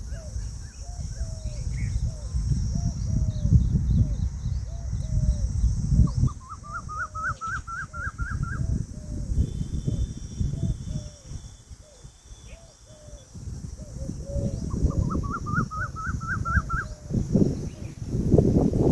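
Peahen (Indian peafowl) calling, a steady run of short calls that drop in pitch, about two a second. Twice a quicker rapid series of higher notes from another bird breaks in. Low rumbling noise and a steady high hiss run underneath.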